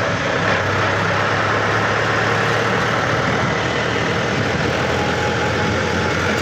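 Mahindra tractor's diesel engine running steadily under way, a constant low hum with road and wind noise.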